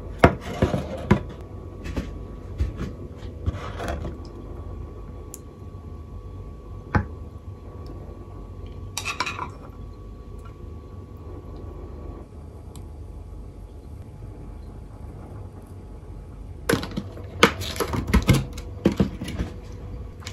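Tableware being handled and set down on a wooden tray: ceramic plates, a pot and a glass dish knocking and clinking. A cluster of knocks comes about a second in, a few single taps follow through the middle, and a busier run of clinks comes near the end.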